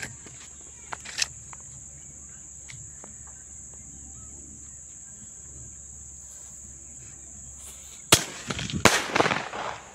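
Cock brand single sky shot firework going off: a sharp bang about eight seconds in, then a second, louder crack under a second later, with a rush of noise that fades within about a second. A steady high insect trill runs underneath.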